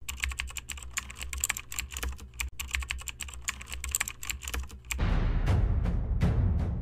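Rapid, irregular clicks of keys being typed, several a second, over a low hum. About five seconds in they give way to louder music with deep drum hits.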